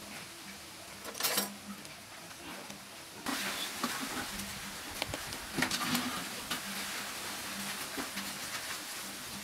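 A small kitchen knife cutting into and scraping out the inside of a raw bitter gourd: scattered small clicks, crunches and scrapes, with one short louder scrape about a second in.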